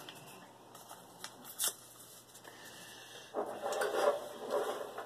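A few light clicks, then, from a little past halfway, a couple of seconds of paper rustling and crinkling as a sheet of paper is handled.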